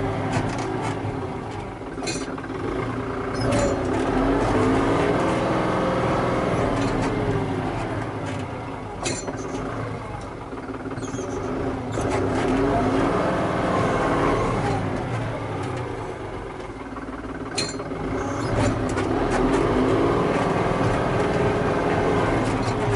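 Tractor engine running under varying load, its revs and loudness rising and falling in slow cycles every several seconds, with a few knocks and clatters.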